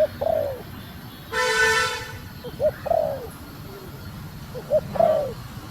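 Female spotted dove cooing: three short groups of arched coo notes, one at the start, one under three seconds in and one about five seconds in. A loud, buzzy, horn-like tone sounds once for well under a second, about a second and a half in.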